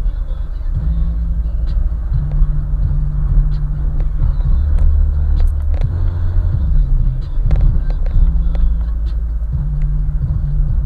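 Car audio system playing hip-hop with heavy bass; the bass line's notes, shifting in pitch about once a second, drown out almost everything else.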